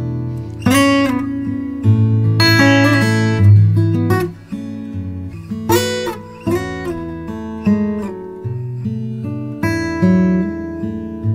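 Background music played on acoustic guitar: plucked notes ringing over sustained low bass notes.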